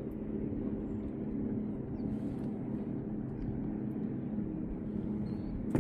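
An engine running with a steady, even drone, and a single brief knock near the end.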